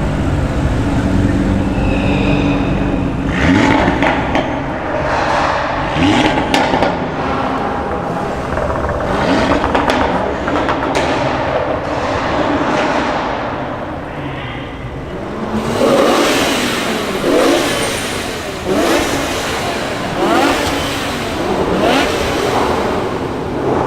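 Performance car engine idling, then revved hard in a series of short blips, each rising and falling in pitch, about five in the second half.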